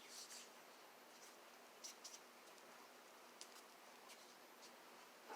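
Near silence with a few faint, scattered clicks and scratches of bird feeder pieces being handled and fitted together.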